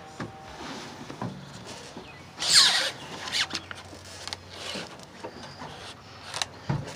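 Rustling and scattered small clicks from a phone being handled and moved around, with a brief high squeak about two and a half seconds in.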